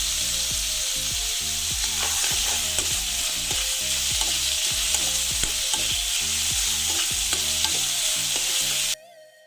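Chicken pieces sizzling as they fry in hot oil in a kadai, stirred with a spatula that knocks against the pan about two to three times a second. The sound cuts off abruptly about nine seconds in.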